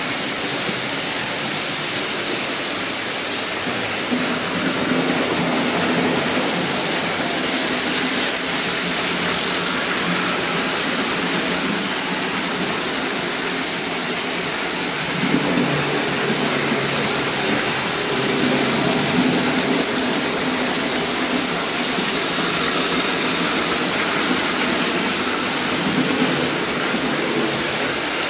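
Märklin HO model trains running around the layout: a steady mechanical whir of their small electric motors and wheels on the metal track, with a lower hum growing a little louder about halfway through.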